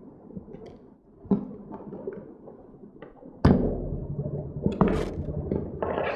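Knocks and clatter from handling a hand swaging tool and stainless steel wire rope while a ferrule is crimped. A sharp knock comes about a second in, and a louder, busier stretch of handling with sharp clicks starts about three and a half seconds in.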